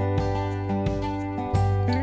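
Background music: acoustic guitar strumming with a bass line and a steady beat.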